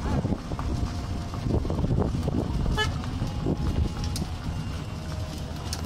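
Small open vehicle driving along, with a steady low rumble of motor, tyres and wind on the microphone. A short horn toot sounds about three seconds in.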